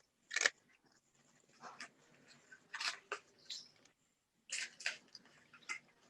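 Scissors snipping paper cupcake liners: a run of short, irregular snips and paper rustles.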